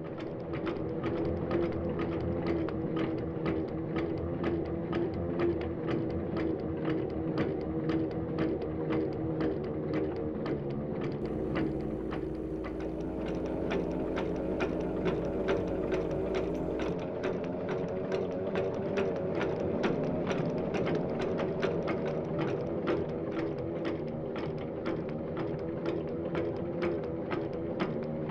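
A machine running with a steady hum and a regular clatter of clicks about three times a second. A deeper hum and a faint high whine join it for several seconds in the middle.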